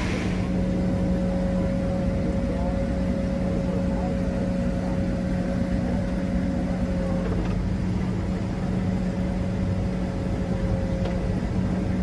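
New Holland combine running, heard from inside the cab as a steady drone with a constant low hum and a fainter higher tone.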